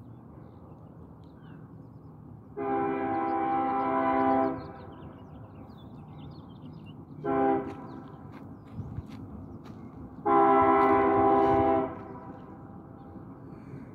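Union Pacific diesel locomotive's multi-chime air horn sounding three blasts: a long one, a short one, then another long one. A low rumble from the passing freight train runs underneath.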